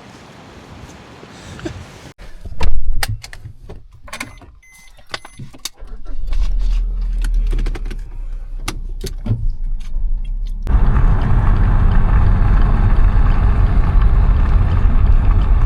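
Clicks and knocks of a car being got into, keys and a door among them. From about six seconds in comes a low engine rumble, then, about eleven seconds in, the steady loud noise of the car driving on the road.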